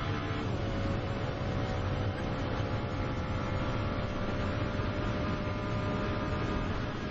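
Ferrari 599XX's V12 engine at full throttle on a straight, heard from on board. Its note drops about half a second in, then climbs slowly and steadily as the car keeps pulling.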